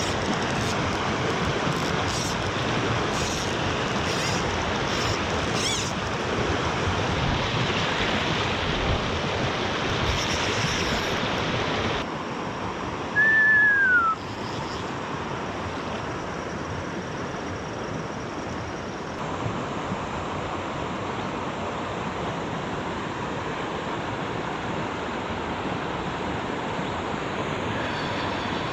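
Steady rush of wind and water, with a few light ticks in the first few seconds. About halfway through comes one short, loud whistle that falls in pitch.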